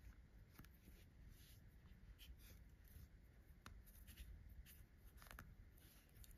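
Near silence with faint rustling and a few soft scratches: yarn being drawn through crocheted fabric as a piece is hand-sewn on.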